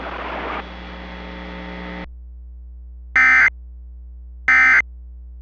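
Radio hiss over a low hum cuts off about two seconds in. Then come two short, buzzy digital data bursts about a second apart: the SAME end-of-message tones that close a NOAA Weather Radio Required Weekly Test.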